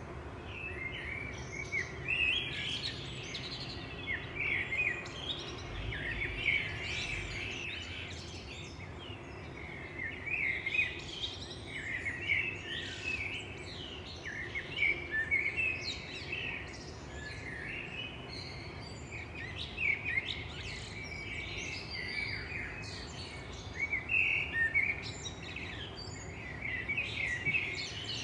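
Several songbirds chirping and singing in short, overlapping phrases, over a faint, steady low background noise.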